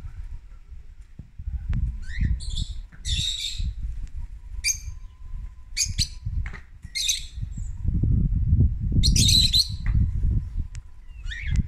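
Aviary birds giving short, high chirps and squawks, about eight scattered calls, the loudest about nine seconds in, over a low rumble that is strongest in the second half.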